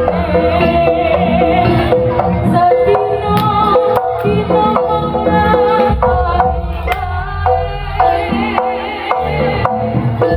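Live Javanese gamelan music accompanying a barongan dance: hand-drum strokes and struck, ringing gamelan notes, with a wavering melody line over them.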